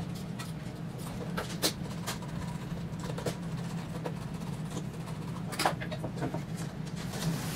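Scattered light clicks and taps of a small screwdriver, wire ends and connectors being handled at stepper-driver terminal blocks, over a steady low hum. Two sharper clicks stand out, one near two seconds in and one near six seconds in.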